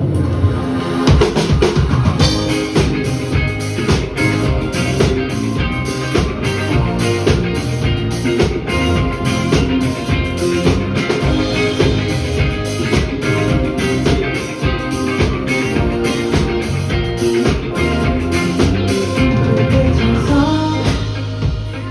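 A live band playing a rock song, with a driving drum kit beat and guitar.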